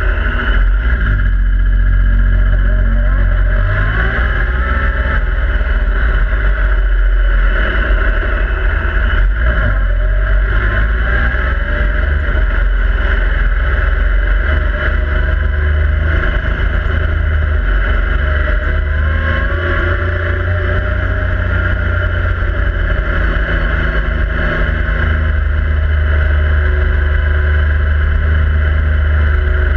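Yamaha YXZ1000R SS side-by-side's three-cylinder engine running under way, heard from inside the open cab, its revs rising and falling several times over a heavy low rumble.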